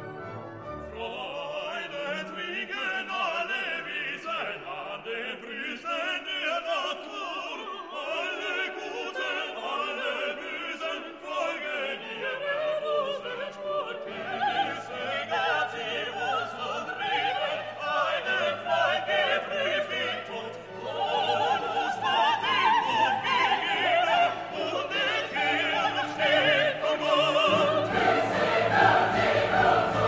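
Background orchestral classical music with operatic singing. It grows louder about two-thirds of the way in, and a deep bass comes in near the end.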